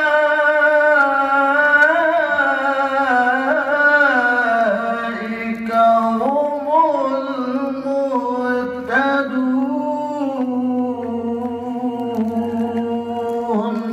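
A man reciting the Quran in melodic tilawah style. He sings one long, ornamented phrase into a handheld microphone, his pitch sliding and wavering throughout, and the phrase ends right at the close.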